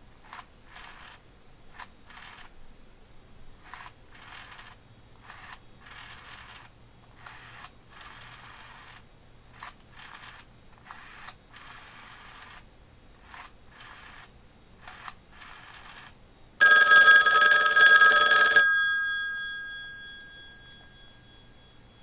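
Western Electric 500 rotary desk telephone's dual-gong bell ringer ringing once, about sixteen seconds in: a loud ring of about two seconds, after which the gongs ring on and fade out over about three seconds. Before the ring there is only faint intermittent background noise.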